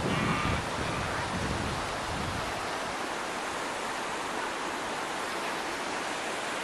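Steady rush of a rocky mountain creek's rapids below a waterfall, an even hiss of water. A low rumble sits under it in the first two seconds or so.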